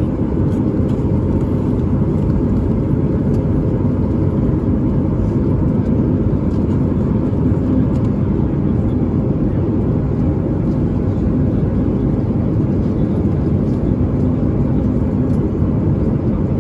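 Steady engine and airflow noise inside the cabin of a Boeing 737 MAX 9 with its CFM LEAP-1B engines running, even and unchanging, with a faint steady hum on top.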